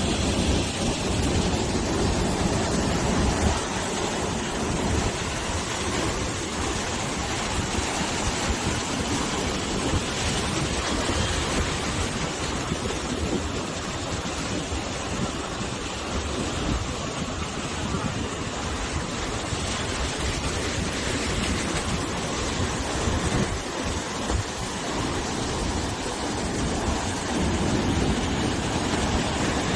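Sea waves washing and breaking on the shore with wind, a steady rushing surf noise. Wind buffets the microphone. The surf swells louder at the start and again near the end.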